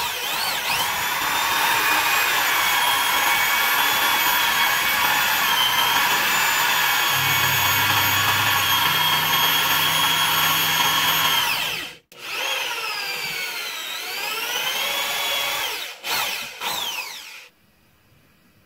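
Electric drill whining at a steady speed as it spins a wooden stick through a sharpened nut held in a vise, shaving it into a round dowel. About twelve seconds in it stops abruptly, runs again with its speed dipping and rising, then gives a few short bursts and stops near the end.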